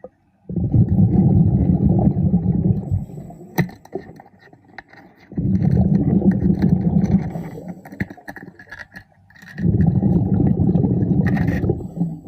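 A diver's exhaled bubbles from a breathing regulator underwater: three exhalations, each a rumbling gush of about three seconds, about four seconds apart, with a few sharp clicks between them.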